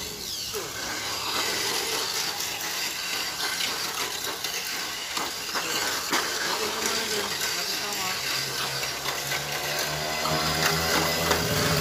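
Tamiya Mini 4WD cars racing around a plastic two-lane track: their small electric motors and gears make a steady high-pitched whir, with rollers rattling along the track walls. A low steady hum comes in about eight seconds in.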